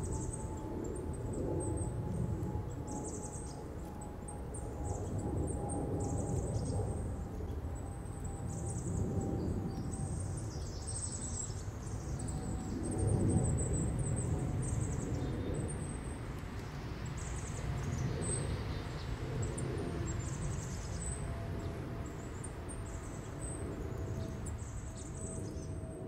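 Outdoor backyard ambience: a steady low rumble with scattered high, short bird chirps and twitters, and a faint hum that slowly drops in pitch.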